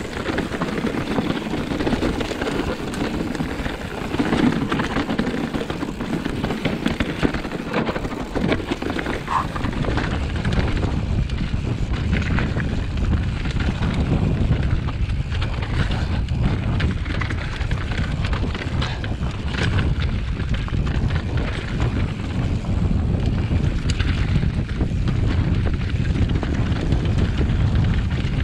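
Mountain bike rattling and its tyres crunching over a loose rocky trail, full of small knocks and clatters, with wind rumbling on the camera microphone that gets heavier about a third of the way in.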